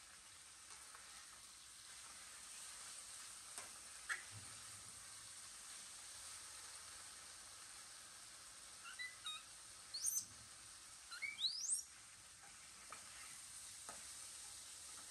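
Faint, steady sizzling of food frying in a wok on a portable gas stove. Between about 9 and 12 seconds in come several short, high, rising chirps, louder than the sizzle.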